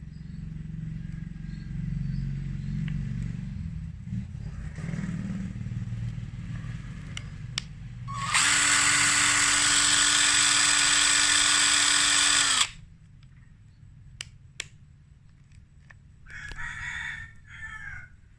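Electric impact wrench run off load in one burst of about four seconds: a loud, steady whir that starts suddenly and cuts off sharply, followed by a few clicks.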